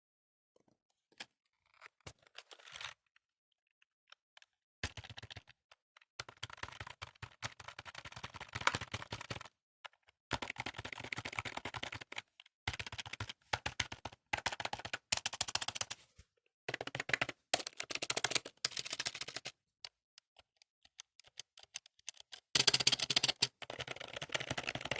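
Old membrane computer keyboard being typed on fast, in bursts of rapid key clicks with short pauses between them.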